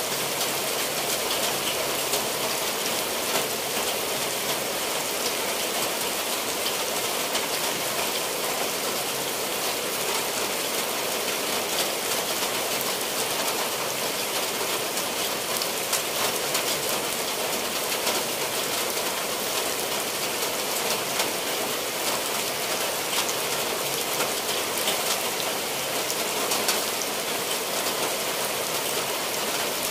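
Steady rain falling on tiled roofs and the ground, with many sharp drop impacts close by.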